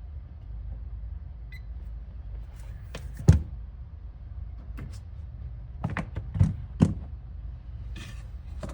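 A few sharp knocks and clicks, the loudest about three seconds in and a small cluster near the end, over a steady low hum.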